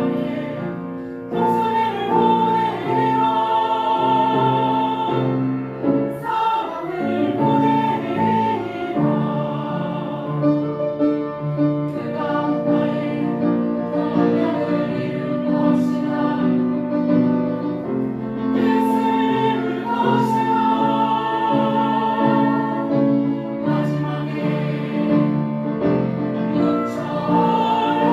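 Choral singing with piano accompaniment: a choir sings a slow song with held, vibrato-laden notes.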